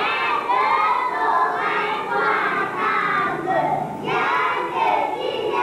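A class of young schoolchildren singing together in unison, many voices at once, loud and without pause.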